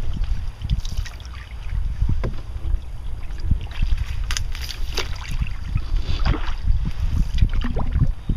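Wind buffeting the microphone of a camera mounted on a moving canoe, a rough, uneven low rumble. Small splashes and knocks from the canoe paddle come now and then over it.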